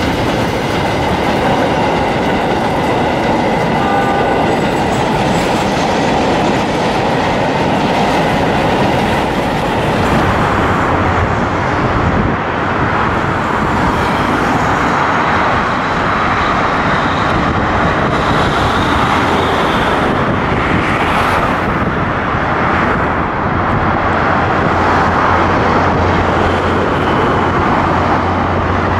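Loaded freight train rolling past close by, its wheels clicking over the rails with a thin steady squeal, for about the first ten seconds. Then an even rushing noise, with a low diesel engine drone from an approaching diesel locomotive that grows louder towards the end.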